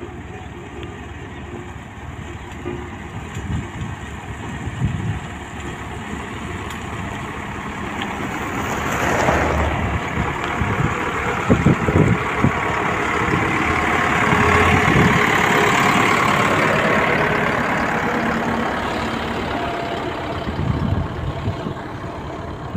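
Motor grader's diesel engine running as the machine passes close by, its blade scraping through loose gravel. The sound swells through the middle, with a few sharp knocks about halfway and a rushing scrape, then eases off near the end.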